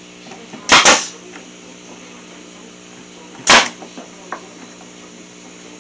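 Staple gun firing staples through a strip of 3/4-inch wood into a planter's bottom boards: two sharp shots in quick succession just before a second in, then a third about three and a half seconds in.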